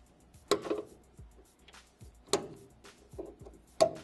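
Screwdriver working screws out of a printer's metal chassis: three sharp metal clinks with a brief ring, about a second and a half apart, with faint scraping between.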